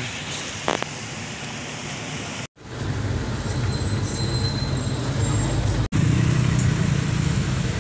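Light street traffic ambience, then after a sudden cut about two and a half seconds in, the steady low engine and road rumble of a moving vehicle heard from aboard it in city traffic, broken by another brief cut near six seconds.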